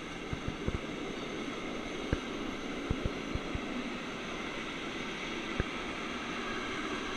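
Freight train of tank wagons, hauled by an electric locomotive, passing through: a steady rush of wheel and rail noise with scattered sharp clicks from the wheels on the track.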